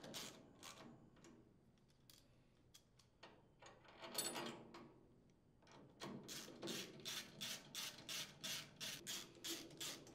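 Faint clicking of a socket ratchet as the cylinder head screws are run down with a 10 mm socket: scattered clicks at first, a louder burst about four seconds in, then a steady run of about three strokes a second over the last four seconds.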